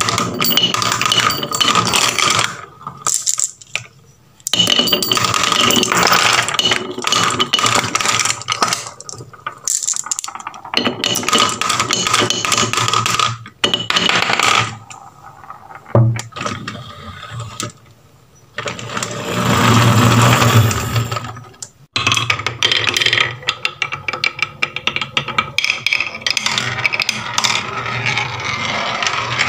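Marbles rolling down a wooden chute and dropping into a plastic toy dump truck's bed, clattering against the plastic and each other in dense runs of clicks and knocks with short pauses. Near the end, a marble rolls along a wooden spiral track.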